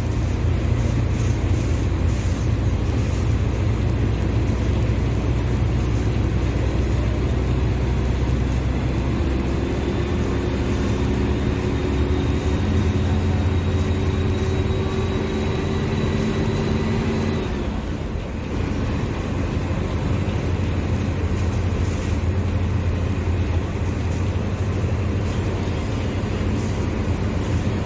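Mercedes-Benz OF-1721 Bluetec 5 diesel bus engine running with a steady low rumble. From about nine seconds in, a whine rises slowly in pitch as the engine revs climb. About eighteen seconds in it drops off suddenly, then settles back into a steady run.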